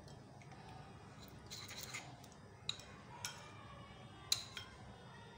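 Metal spoon stirring a thick paste in a small ceramic bowl, with a soft scraping and several sharp clinks of spoon against bowl, the loudest about four seconds in.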